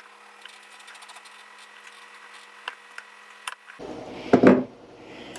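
A hand tool scraping and nicking at the plastic of a battery box as a slot is trimmed, in small scattered clicks. About four and a half seconds in, a loud short knock with a brief clatter as the plastic box is handled.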